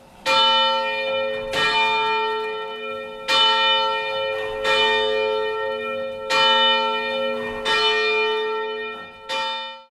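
Church bell struck seven times in an uneven rhythm, each stroke ringing on into the next; the ringing cuts off abruptly near the end.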